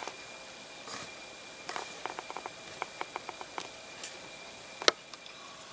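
A scatter of light clicks and taps over a faint steady hiss, with one sharper click about five seconds in.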